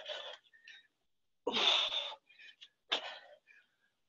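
Three short, forceful exhalations from a woman straining through burpee tyre lifts; the second, about a second and a half in, is the loudest.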